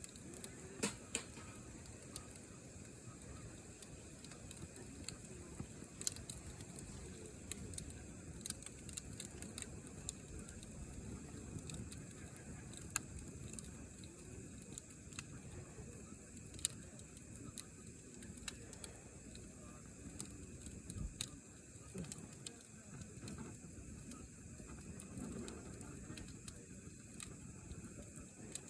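Campfire crackling: wood burning with a steady low hiss and irregular sharp pops and snaps every second or so.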